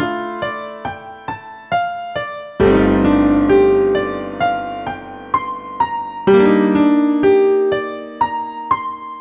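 MIDI music rendered with the Timbres of Heaven soundfont: sampled piano notes struck about twice a second over held chords, each note dying away. A loud full chord comes in about two and a half seconds in and again about six seconds in.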